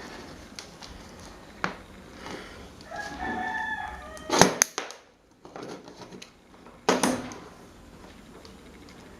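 A rooster crowing once, a held call about three seconds in, with two loud sharp knocks from workshop handling about four and a half and seven seconds in.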